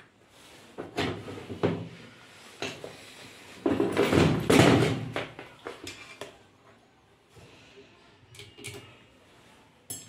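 Hands handling tools and wires on a workbench: a few clicks and knocks, then a louder clatter and rustle for about a second and a half, about four seconds in, and a few faint clicks near the end.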